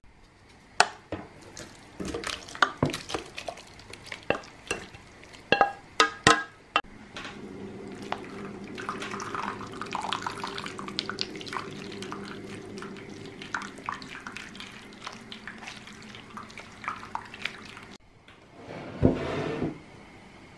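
Spoon or utensil clinks and knocks against a stainless steel pot of cooked grapes. Then a steady run of grape juice pouring and dripping through a metal sieve into a wooden bowl, with a brief louder noise near the end.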